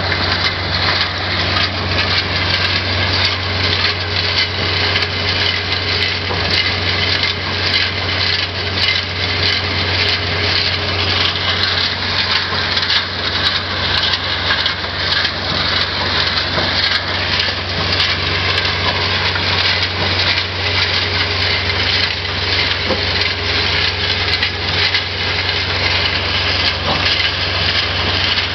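A SieMaRo 1500-3 trommel screen working: its engine runs with a steady low drone while broken brick and concrete rubble tumbles and clatters continuously in the rotating screening drum.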